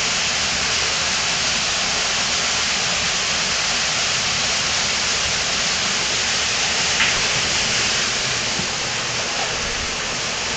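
Cave waterfall falling steadily: an even, rushing hiss, with one brief click about seven seconds in.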